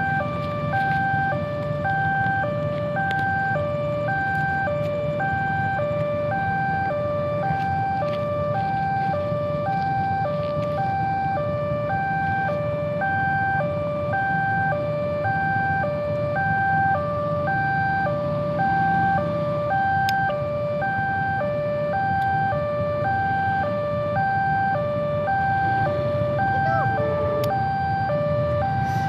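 Railway level-crossing warning alarm sounding: an electronic signal alternating steadily between a high and a low tone, each held about half a second, warning of an approaching train. A steady low rumble of waiting traffic runs underneath.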